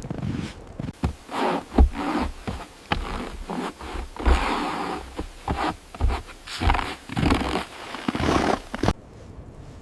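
Irregular scraping and rubbing strokes, each about half a second to a second long, with a few dull knocks among them; they stop abruptly near the end.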